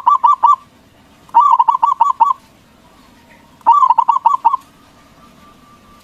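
Zebra dove (perkutut) cooing: short phrases of quick, bouncing coo notes, heard about three times, one just ending as it starts, one around a second and a half in, and one around four seconds in.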